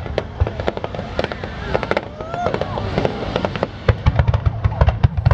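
Fireworks going off in quick succession: a dense run of sharp bangs and crackles, several a second, over deep booms.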